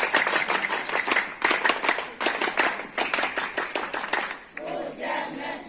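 A crowd clapping, a dense patter of many hands that dies away about four and a half seconds in; a few indistinct voices follow near the end.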